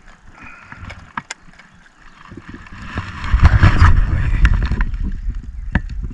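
A few sharp clicks, then from about three seconds in a loud low rumble with knocks and bumps: close handling noise on the camera microphone while a bass is held and weighed in a jon boat.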